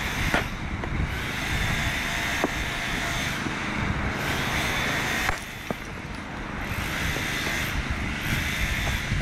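Sledgehammer striking an old dry-mix concrete kerb, three sharp hits a few seconds apart over steady background noise. The kerb breaks apart under the blows, showing it has little strength.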